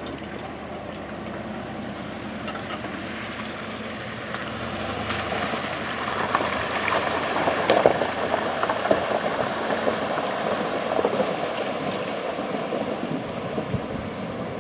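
Ford pickup truck driving through a shallow river ford, with water rushing and splashing around its tyres. The splashing grows louder about halfway through.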